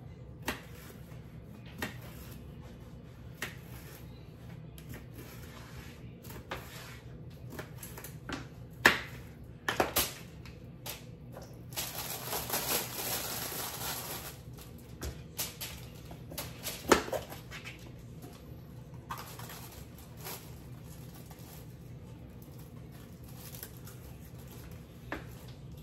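Kitchen handling sounds: scattered clicks and knocks of dishes and utensils, with sharper knocks around nine and seventeen seconds in. A hiss of about two seconds comes midway, over a steady low hum.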